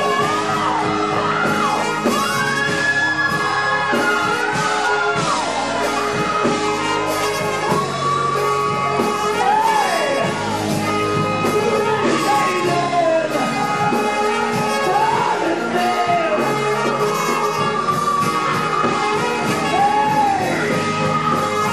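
Live gospel song: a lead singer sings over a choir and instrumental backing with a steady beat.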